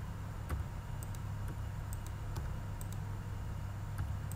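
Separate keystrokes and clicks on a computer keyboard and mouse, a few sharp ticks about half a second to a second apart, over a steady low hum.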